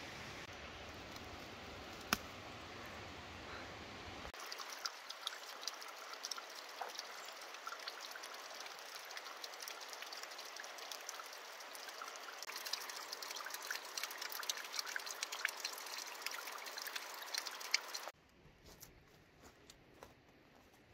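Water trickling and dripping down a rock face, a quick, uneven patter of small drops. It is preceded by a few seconds of even hiss with a single click, and ends in near quiet.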